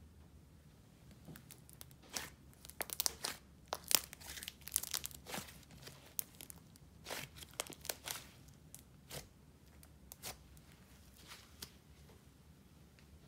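Thick pink slime being stretched, folded and squeezed in the hands, giving a run of small sticky crackles and pops. The crackles are densest a few seconds in and thin out toward the end.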